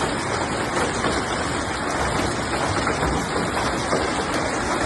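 Hailstorm with heavy rain pelting down, a dense, steady hiss of countless small hits.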